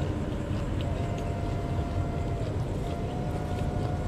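Steady low rumble of distant city traffic, with a faint thin tone that drops out now and then and a few faint crunches of young corn being chewed.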